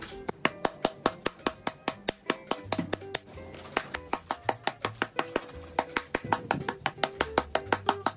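Wooden ball-headed glove mallet striking the pocket of a wet leather first baseman's mitt in quick, even blows, about four or five a second, pounding out a crease in leather softened with hot water. Background music plays under the strikes.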